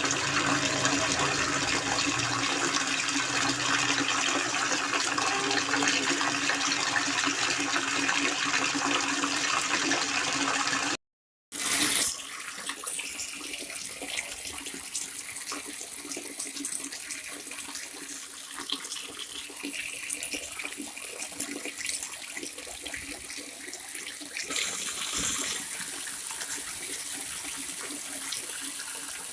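Water running steadily from a spout and splashing. About 11 s in it cuts off for half a second, then comes back lighter and thinner-sounding.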